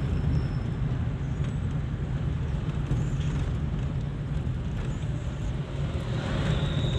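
Inside the cabin of a small Suzuki car being driven: steady low engine and road rumble.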